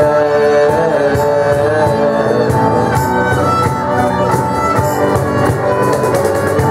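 Live acoustic band playing an instrumental passage: a violin carries a wavering, sustained melody over strummed guitar and hand-struck cajón.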